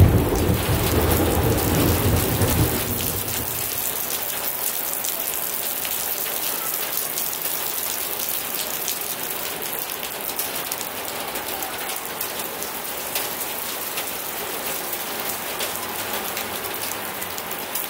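Heavy rain falling steadily with a patter of drops, while a low thunder rumble dies away over the first three seconds or so.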